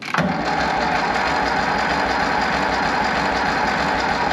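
Ferguson TEA20's four-cylinder petrol engine cranking over steadily on its starter motor, with brake cleaner sprayed into the air intake as a starting aid, trying to catch.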